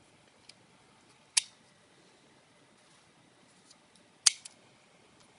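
A few sharp clicks and taps from a small plastic Happy Meal toy being handled, the two loudest about a second and a half in and about four seconds in.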